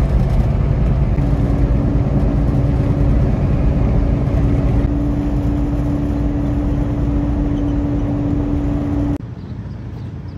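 Road and engine noise heard inside a semi truck's cab at highway speed, a dense low rumble with a steady hum running through most of it. About nine seconds in it cuts to a much quieter outdoor background.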